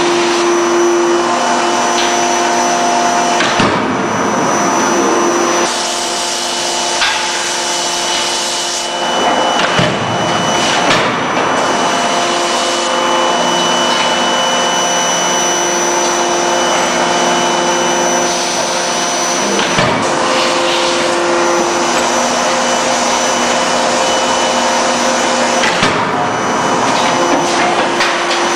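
C92K-50KJ CNC fully hydraulic die-forging hammer at work: its hydraulic system runs with a loud steady hiss and whine whose tones switch on and off, and the ram strikes hot workpieces with several sharp blows a few seconds apart.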